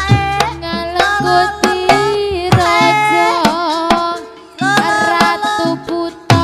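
Live Javanese traditional music: hand drums struck in sharp strokes under a melodic line of bending, held notes. The music breaks off briefly about four seconds in and then resumes.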